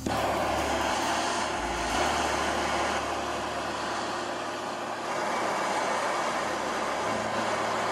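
Power tool working the steel rasp with a steady, loud grinding or cutting noise, shaping it into a rivet nut installation tool. Background music plays underneath.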